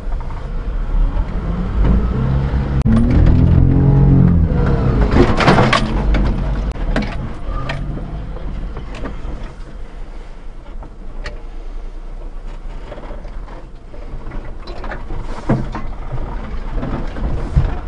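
Daihatsu Hijet Climber mini truck's 660cc engine pulling through sand, heard from inside the cab: it revs up hard about two seconds in, then eases off to a steadier drive, with scattered knocks and rattles throughout.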